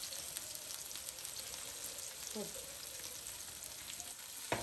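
Masala-coated seer fish (king mackerel) slices sizzling and crackling steadily in hot oil in a nonstick pan, with one sharp click near the end.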